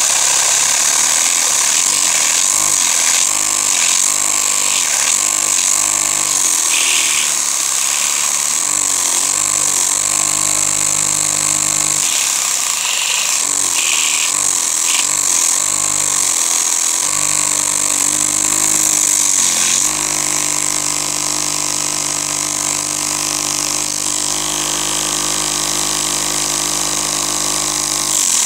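Vacuum cleaner running with its hose drawing air through a Lego butterfly vacuum engine, which clatters as it turns. The engine's beat changes speed through the first half, then runs steadily for long stretches, over the constant hiss of the vacuum.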